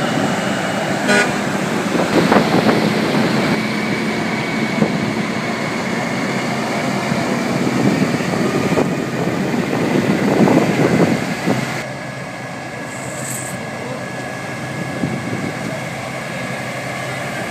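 Kenworth semi-trucks' diesel engines running as the trucks roll slowly past one after another, with horn toots sounding over the engine noise. The noise eases a little about two-thirds of the way through.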